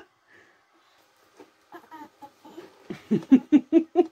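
A person's voice: a quick run of short vocal pulses, about five a second, starting about three seconds in, after a mostly quiet start with a few faint small sounds.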